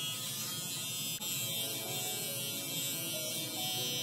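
Cordless hair trimmer buzzing steadily as its blade runs along the neckline behind the ear, lining up the back hairline.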